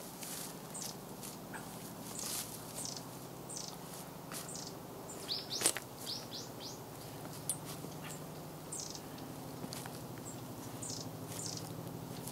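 Small birds chirping, with many short high calls falling in pitch, over the scrape and chop of a hoe working the soil of a paddy levee. One sharp knock comes about five and a half seconds in.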